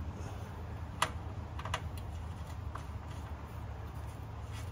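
A few light clicks and taps over a steady low hum: one sharp click about a second in, a quick double click shortly after, and a fainter one later.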